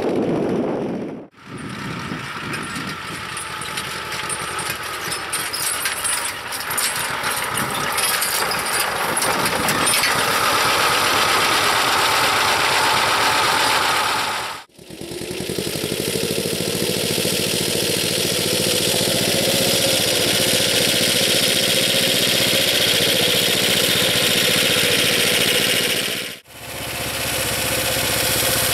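Vladimirets T-25 tractor's two-cylinder air-cooled diesel running steadily under load while pulling a plough through soil. Clicking rattles sound over the engine for the first several seconds. The sound drops out for a moment twice.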